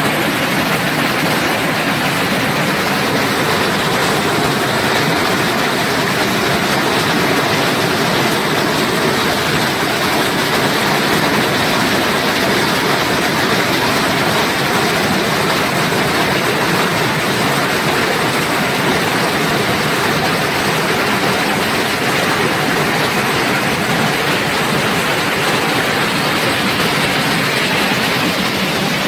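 Waterfall rushing: a loud, steady roar of falling water with no breaks.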